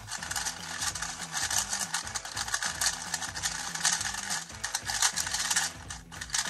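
Rapid, irregular clicking and clacking of a Moyu RS3M 2021 MagLev 3x3 speedcube being turned fast during a speedsolve.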